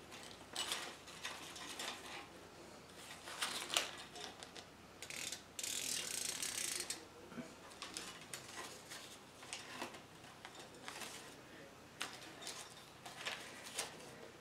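Faint rustling and clicking as artificial leaf picks and flower stems are handled and tucked into a metal tiered tray, with a longer crinkling rustle about six seconds in.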